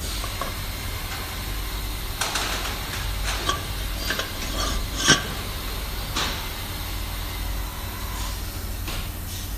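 Cab tilt pump tank housings knocking and clinking against each other and their tray as they are handled: a handful of short, sharp knocks, the loudest about five seconds in, over a steady low hum.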